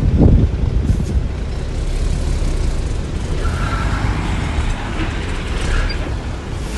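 Heavy diesel earthmoving machinery, a bulldozer and dump trucks, running steadily. There is a brief swell right at the start and faint high squeals about halfway through.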